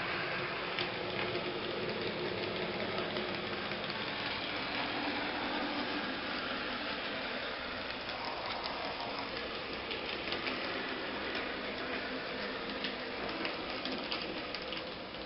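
N-scale model train running on its track: the steady hum of a small electric motor and wheel noise, with occasional faint clicks.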